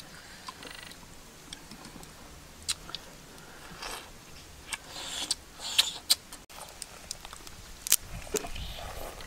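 A person eating: irregular small crunches and clicks of chewing and biting, busiest about halfway through, with a sharp click near the end.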